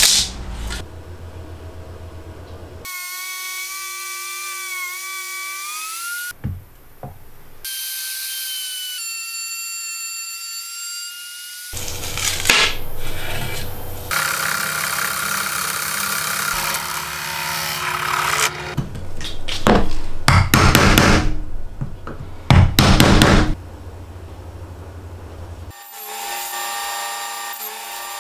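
Makita M373 trim router running, its motor whine shifting a little in pitch, broken by stretches of harsher, louder noise as the bit cuts wood.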